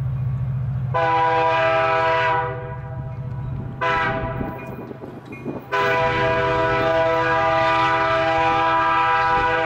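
CN freight locomotive's horn sounding for a road crossing: a long blast, a short one, then another long blast held to the end, each a chord of several pitched notes. A steady low rumble runs underneath.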